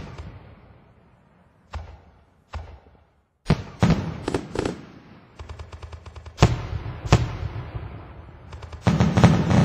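Fireworks exploding: separate sharp bangs, each trailing off, a stretch of rapid crackling about halfway through, and a dense run of bursts near the end.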